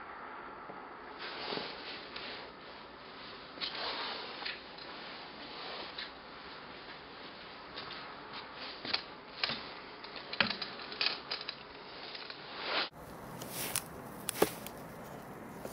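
Handling noise on a handheld camera: irregular rustles and sharp clicks over a steady hiss. The sound changes abruptly near the end, where a single sharp click stands out.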